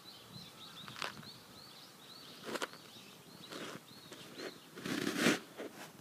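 A small bird chirping over and over, a short high note every half second or so, with a few footsteps on the gravel riverbank, the loudest about five seconds in.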